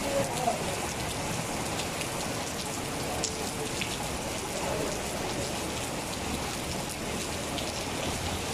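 Heavy rain falling steadily on a wet paved road, with a few sharper drop hits here and there.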